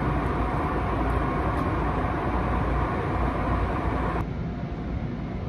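Train noise in an underground rail station: a loud, steady rumble and rushing noise with a faint steady whine, which cuts off suddenly about four seconds in, leaving a quieter station hum.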